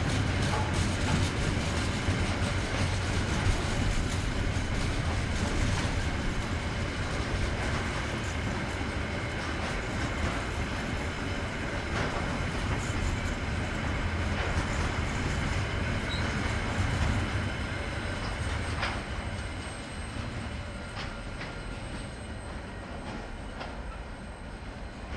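A train on a New Zealand narrow-gauge line rolling past with steady wheel-on-rail noise and a few clicks from the rail joints. A thin high wheel squeal comes in during the second half, and the train fades away over the last several seconds.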